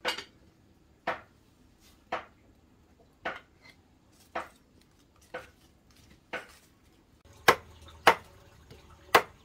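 Knife chopping on a cutting board in single strokes about once a second, quickening and striking harder near the end.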